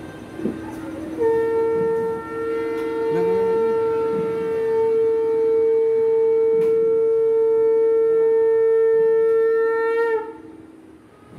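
Conch shell (shankha) blown in one long steady note for about nine seconds, with a brief break about two seconds in and a slight wobble as it stops, over a steady low hum.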